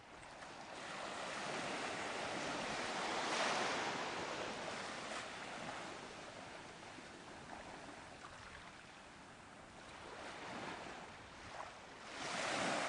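Ocean surf: a steady rush of waves breaking and washing in, swelling louder about three seconds in and again near the end.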